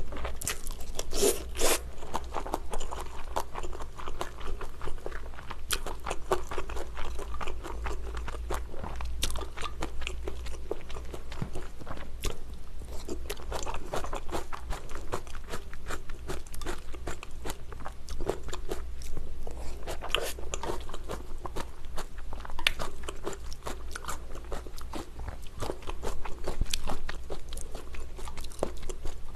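Close-miked eating of pad thai (stir-fried rice noodles with shrimp): chewing and biting with a steady run of wet mouth clicks and crunches.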